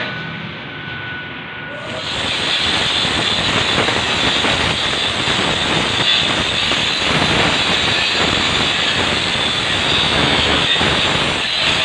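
Handheld angle grinder grinding down weld beads on a steel press-brake part, the disc biting the metal in a loud, steady grinding hiss that sets in about two seconds in, after a quieter stretch.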